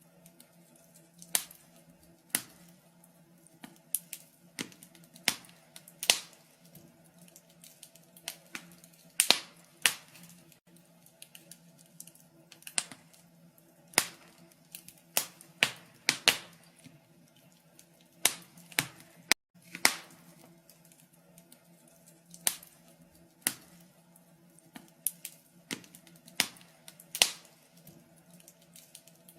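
Wood fire crackling in a fireplace: irregular sharp snaps and pops, sometimes several in quick succession, over a faint steady low hum.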